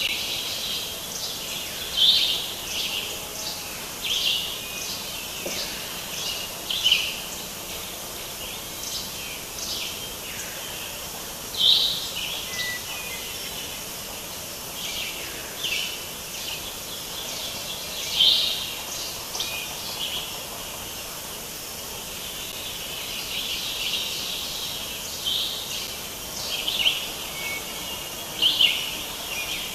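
Birds chirping outdoors: short high calls every second or two over a steady background hiss.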